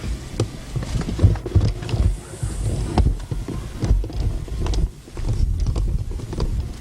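Wind buffeting the camcorder microphone: a gusty low rumble that swells and dips, with scattered knocks, including a brief dip about five seconds in.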